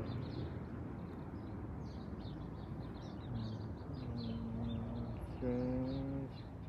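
Small birds chirping repeatedly in quick, high notes over steady outdoor background noise. Two held, voice-like low tones come in past the middle, the second and louder one near the end.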